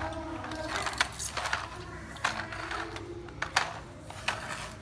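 Irregular light taps and clicks of a toddler's hands patting and pressing on a tablet lying on a tiled floor.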